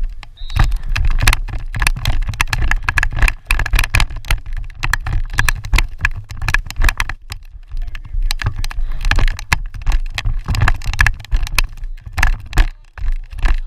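Wind buffeting the microphone: a steady low rumble with irregular crackling.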